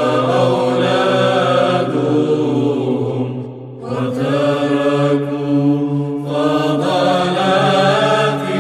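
Orthodox church choir chanting a psalm over a steady low held drone note, with the voices briefly breaking off for a breath about three and a half seconds in before the melody resumes.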